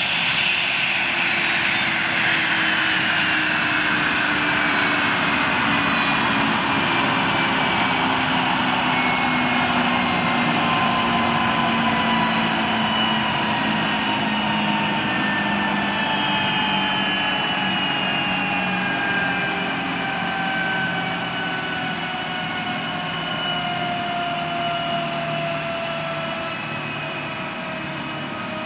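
Eurocopter AS 365 Dauphin helicopter on the ground with its twin turboshaft engines and main rotor running. The turbine whine falls slowly and steadily in pitch as the engines wind down. The overall sound eases off somewhat in the second half.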